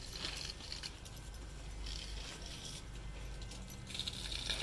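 Wet clothes being squeezed and sloshed by hand in soapy water in a plastic washtub, in three short splashy bursts.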